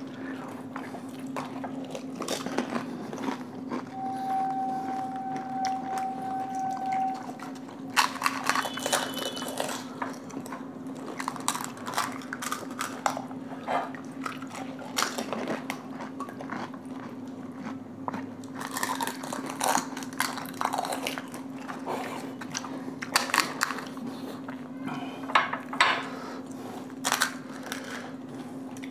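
Crisp hollow pani puri shells being cracked open and crunched while eating, heard as scattered sharp crunches and clicks over a steady low hum. A faint steady tone sounds for about three seconds, starting about four seconds in.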